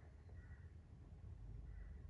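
A sleeping cat snoring faintly: soft, high squeaky breath sounds about once a second over a low steady rumble.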